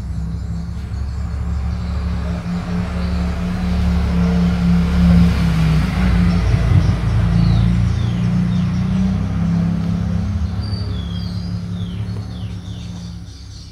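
A motor vehicle engine running with a low hum, growing louder toward the middle and then fading away, as a vehicle passing by would. Birds chirp briefly over it in the second half.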